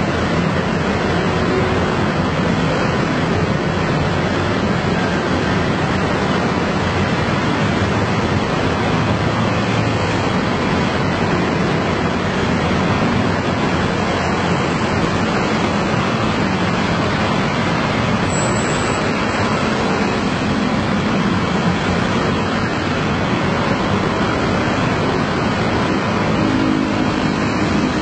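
Dense traffic of hundreds of motor scooters: many small engines running together in a steady, even wash of sound, with no single vehicle standing out.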